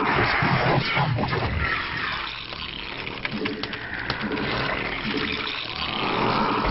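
Real-time strategy video game sound effects of a Zerg army in combat: a noisy wash of creature and battle sounds with scattered clicks and hits. The hiss swells near the start and again near the end.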